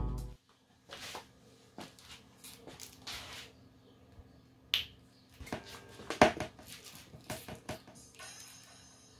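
Guitar music cuts off at the start, then a run of light clicks and taps, the loudest about six seconds in, as the rocker power switch on a homemade paper-tube Bluetooth speaker is pressed and a phone is handled. Faint high-pitched electronic tones come in near the end as the speaker's player module and LED rings power on.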